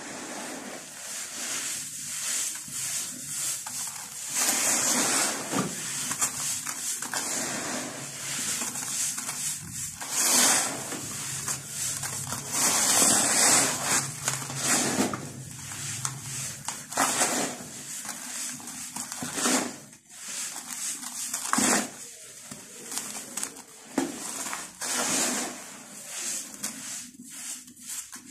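Hands crumbling and dropping handfuls of dry, gritty dirt in a container: a crunching, sifting rustle of soil grains that swells and fades in irregular surges.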